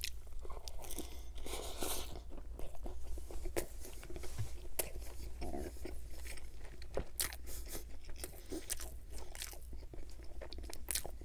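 Close-miked chewing of a mouthful of Chicago-style hot dog, a steady run of small wet clicks and crackles from the mouth.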